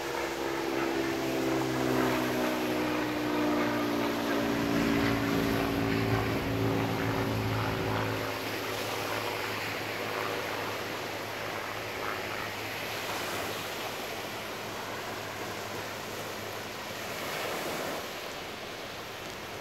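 A small airplane flying overhead, its engine drone falling steadily in pitch as it passes and dying away about eight seconds in. Surf washes on the beach.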